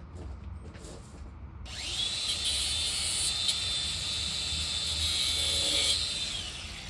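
An angle grinder spins up about two seconds in, its whine rising quickly to a steady high pitch, and runs with a harsh cutting hiss for about four seconds before winding down near the end.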